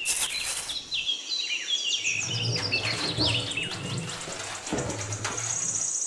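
Birds chirping: many quick, short chirps through the first few seconds over a high, steady trill. A small trowel scrapes in damp sand at the very start.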